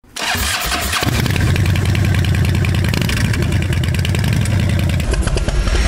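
Harley-Davidson Dyna Wide Glide V-twin engine turning over for about a second, then catching and idling steadily.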